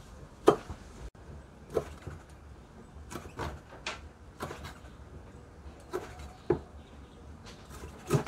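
Chef's knife chopping on a round wooden chopping board, cutting garlic and then chicken feet: irregular sharp knocks, about ten in all, spaced half a second to a second apart.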